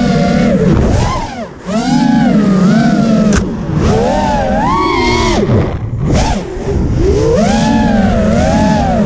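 FPV racing quadcopter's brushless motors and propellers whining, the pitch rising and falling with the throttle, heard from the GoPro mounted on the drone. The sound drops briefly about one and a half seconds in, and there is a sharp click about three and a half seconds in.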